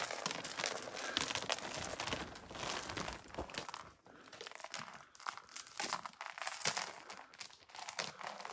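Irregular rustling, scraping and crunching from a climber moving over a rocky mountain path, with clothing and gear rubbing close to the microphone. It is busier at first and thins out after about four seconds.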